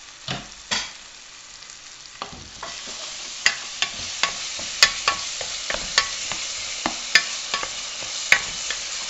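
Wooden spoon stirring chopped onions, tomato and garlic frying in oil in a metal pot. The sizzle grows louder from about two seconds in, and the spoon clicks against the pot every half second or so, after a couple of louder knocks near the start.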